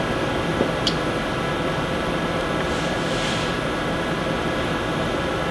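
Steady ventilation noise, a continuous whir with faint steady tones in it, with a single faint click about a second in.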